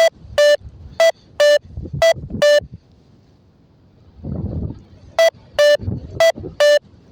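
XC Track variometer app beeping out short electronic beeps, roughly two a second in pairs, with a pause of a couple of seconds midway. The intermittent beeps are the vario's climb signal, telling the pilot the glider is going up. A brief low rustle comes in the pause.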